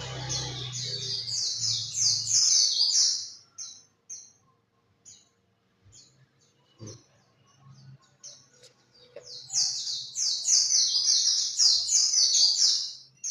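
Pleci (white-eye) birds singing a rapid, high twittering song in two long bouts, with scattered short calls in the lull between.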